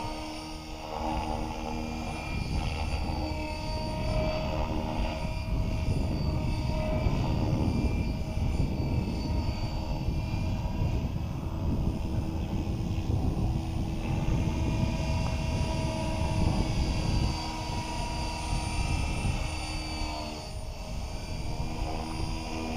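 Gaui X5 electric RC helicopter in flight at a distance: a steady motor and rotor whine that drifts a little in pitch as it manoeuvres, over a low, gusty rumble of wind on the microphone.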